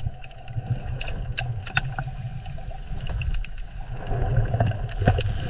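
Underwater ambience: a steady low rumble with scattered sharp clicks.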